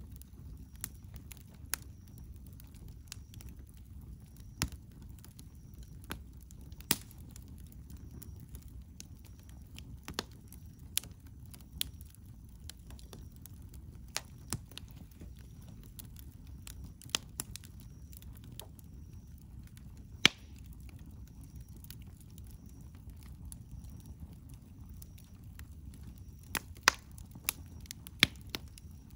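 Wood campfire burning, with sharp crackles and pops at irregular moments, the loudest about two-thirds of the way through and a cluster near the end, over a steady low rumble.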